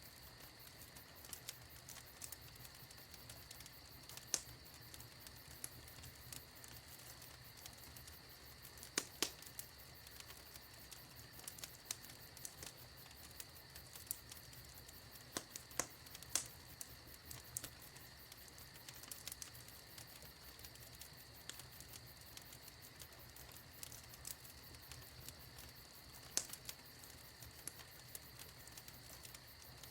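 Wood fire crackling in a fireplace: irregular sharp pops and snaps, a few of them much louder than the rest, over a faint steady hiss.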